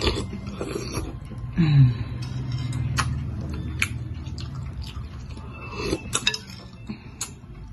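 Eating glass-noodle soup: a fork and spoon clink against the bowl several times while noodles are slurped from it.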